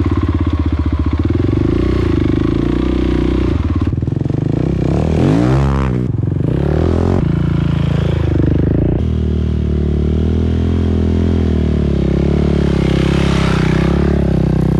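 Husqvarna 701's single-cylinder engine working hard through deep soft sand, the revs rising and falling with the throttle, with a quick rev up and back down about five seconds in.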